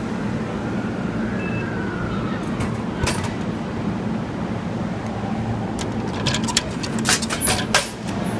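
Steady low hum by a vending machine, with a sharp click about three seconds in and a quick run of clacks and knocks near the end from handling the machine.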